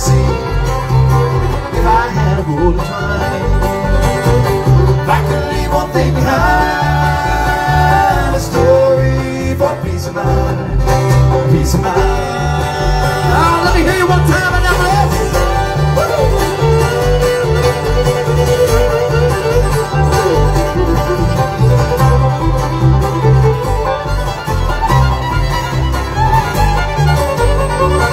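Live bluegrass band playing without singing: a fiddle carries the melody over banjo rolls, acoustic guitar and a steady upright-bass pulse.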